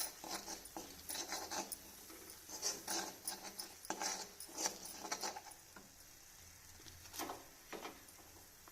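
A spoon stirring and scraping a thick ginger-and-jaggery paste cooking in ghee in a pan. There is a quick run of scrapes and taps for about five seconds, then only a few scattered strokes.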